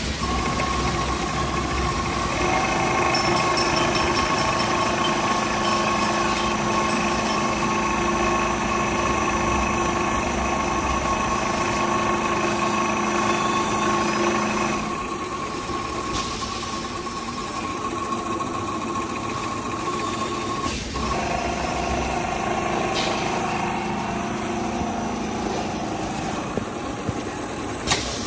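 Industrial mattress-making machine running: a steady motor hum with a held high whine, the sound dropping a little and changing about halfway through, and a sharp click near the end.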